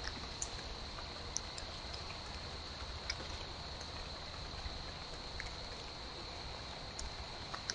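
Quiet outdoor background: a steady high-pitched hiss with scattered faint ticks and clicks.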